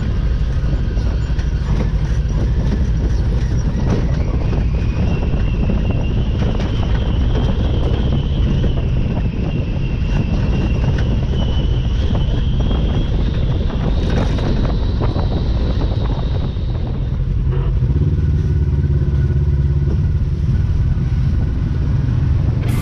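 Side-by-side UTV's engine running under way, heard from inside the cab, with a high whine that rises and holds for several seconds. About three-quarters of the way through, the sound settles into a steadier, deeper engine drone.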